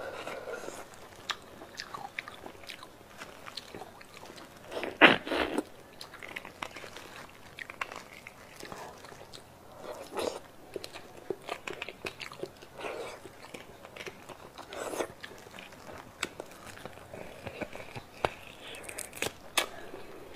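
Close-up mouth sounds of eating beef bone marrow: sucking and slurping the marrow out of cut bone sections, wet chewing, and small clicks of a metal spoon scraping inside the bone. The loudest slurp comes about five seconds in.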